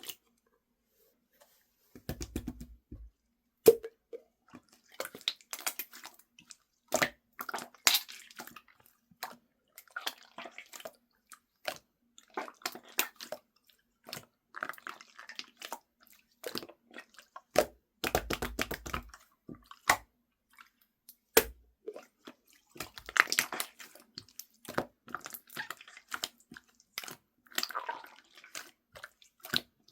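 Close-up crackling, crunching and squishing with sharp clicks, coming in irregular bursts with short pauses between them.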